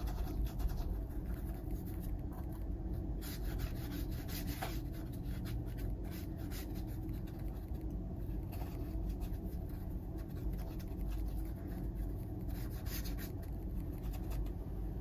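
Paintbrush scrubbing acrylic paint onto a canvas board: soft, irregular scratchy rubbing strokes over a steady low hum.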